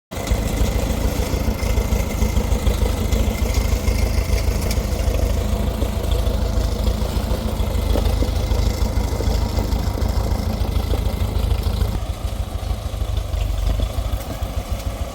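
Old Case 580CK backhoe engine running steadily with a dense low pulsing, easing off slightly about twelve seconds in.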